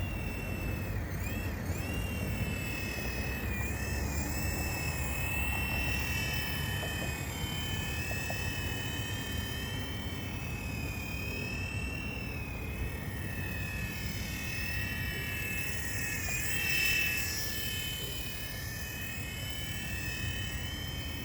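Mini RC helicopter's small electric motor and rotor whining in flight, the pitch wavering up and down as the throttle changes; it grows louder for a moment about two-thirds of the way through.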